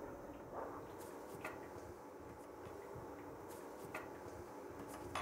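Quiet kitchen room tone with a few faint, scattered clicks and taps of cutlery and crockery on a table.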